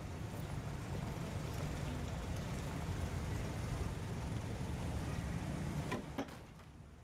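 Steady low rumbling background noise, then about six seconds in two sharp knocks as a wooden chair is dropped and clatters onto a concrete floor.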